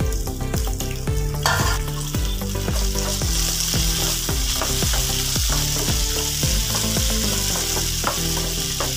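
Shallots, garlic, dried red chillies and cut tomatoes sizzling in oil in a non-stick frying pan, being sautéed with a wooden spatula that scrapes and taps the pan about twice a second. The sizzle grows louder about a second and a half in.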